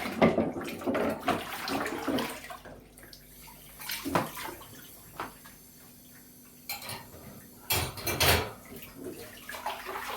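Dishes being washed by hand in a sink: water splashing and sloshing with dishes and cutlery knocking together, busiest in the first few seconds, then in separate bursts, the loudest a little after the middle.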